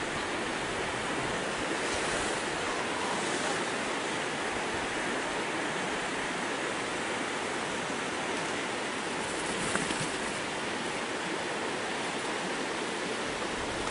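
Steady rush of river water, an even wash of noise without breaks or distinct events.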